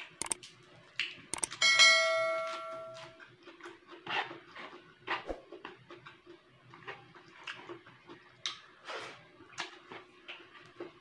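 A few sharp clicks, then a notification-bell chime about a second and a half in that rings for about a second and a half and fades, the sound effect of a subscribe-button animation. After it come scattered soft lip smacks and chewing noises of eating by hand.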